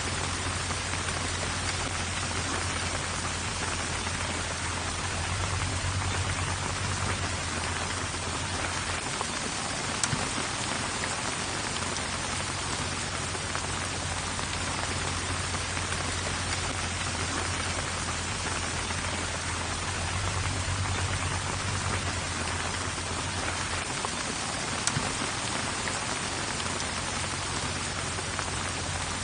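Steady heavy rain: a dense, even hiss of drops with a constant low rumble underneath. Two brief sharp ticks stand out, about ten seconds in and again near twenty-five seconds.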